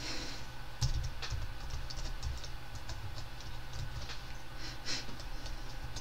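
Typing on a computer keyboard: a quick, irregular run of key clicks starting about a second in, over a steady low hum.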